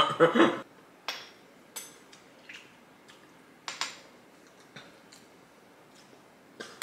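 A brief bit of voice at the very start, then a handful of light clicks and clinks, a second or so apart, from a metal spoon and can being handled on a kitchen counter.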